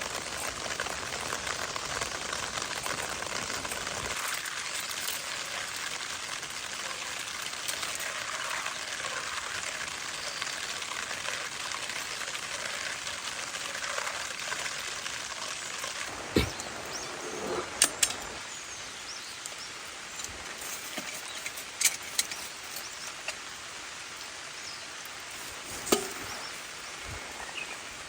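Steady rain hiss, a little heavier in the first few seconds, with a handful of sharp taps or knocks in the second half.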